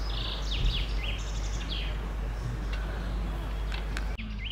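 Small birds chirping, a cluster of quick high calls in the first second and a half and a few more later, over a steady low wind rumble on the microphone.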